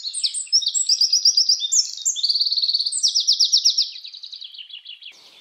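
A songbird singing a fast, varied song of high trills and quickly repeated notes, fading somewhat near the end.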